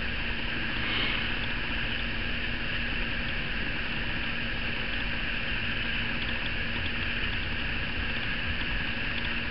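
Steady background hiss with a faint, even low hum and no distinct events: room tone.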